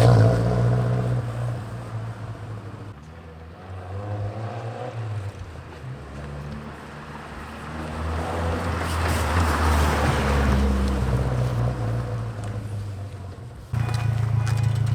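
Nissan 240SX engine running at idle, restarted after its loose positive battery cable terminal was tightened. The sound fades down over the first few seconds, swells again around the middle, and turns abruptly louder near the end.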